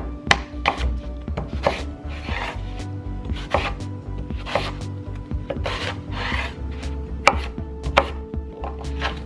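Chef's knife cutting a crisp apple on a wooden cutting board: irregular sharp knocks as the blade meets the board, with crunching slices through the apple between them.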